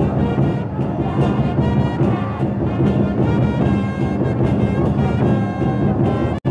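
Background music with held chords over a steady drum beat, dropping out for an instant near the end.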